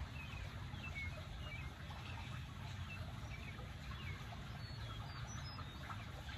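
Birds chirping, with short high calls scattered throughout, over a steady low rumble.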